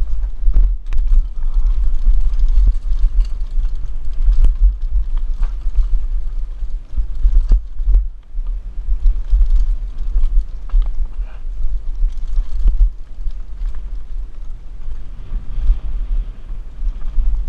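Wind buffeting a helmet-mounted action camera's microphone during a fast downhill mountain-bike descent, a heavy steady rumble, with frequent knocks and clatters from the Mongoose Pinn'r bike hitting bumps on rough trail.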